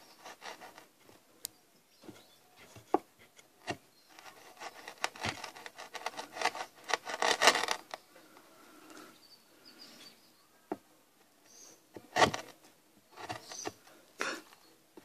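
Wide flat chisel paring and scraping across wood by hand, in irregular strokes that run densest through the middle of the stretch, with a few sharp clicks of the blade or tool against the wood.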